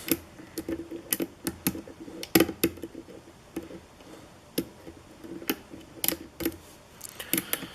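Lock pick working the pins of a Kwikset-based challenge lock held in a vise: irregular sharp metal clicks and taps as the pins are probed and set.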